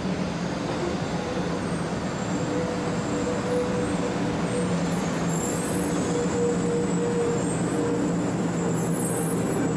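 500 Series Shinkansen bullet train rolling slowly alongside a station platform: a steady running noise with a low hum and a higher steady tone.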